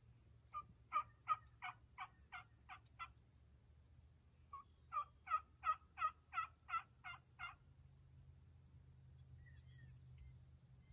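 Turkey yelping: two runs of about eight to nine evenly spaced yelps, about three a second, with a short pause between the runs.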